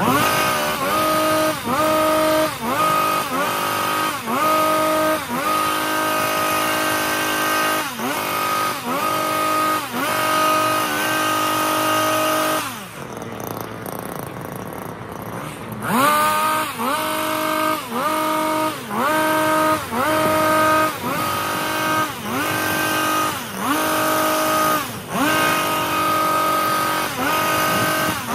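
Stihl HS 82 T two-stroke petrol hedge trimmer revving in short repeated bursts, about one a second, each rising quickly, holding and dropping back, as the blades cut. The engine eases off for about three seconds in the middle, then the bursts resume. Sped up to double speed, which raises the pitch.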